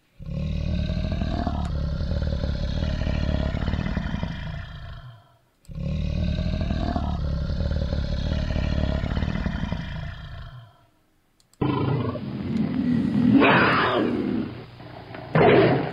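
Recorded tiger roars. Two long roars of about five seconds each, nearly identical, are followed after a short pause by a different, narrower-sounding recording with two louder roars near the end.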